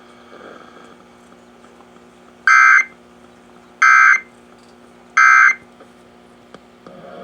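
Emergency Alert System end-of-message data tones: three short, loud bursts of digital screech about a second and a half apart, the code that closes the alert.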